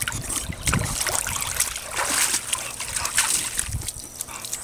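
Pool water splashing and sloshing as an English bulldog wades up the pool steps and climbs out, with water running off its coat onto the concrete deck.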